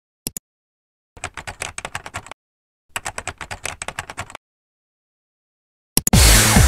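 A short double mouse click, then two quick runs of computer keyboard typing with a pause between them. Near the end comes another click and electronic music with a steady beat starts suddenly and loudly.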